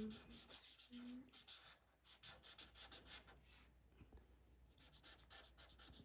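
Sharpie felt-tip marker scribbling back and forth on paper while colouring in: faint, quick scratchy strokes, busiest about two to four seconds in.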